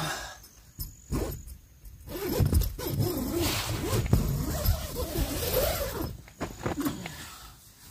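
Nylon tent door zipper being drawn open: a few short rasps, then a longer continuous run, with the door fabric rustling as it is pulled down.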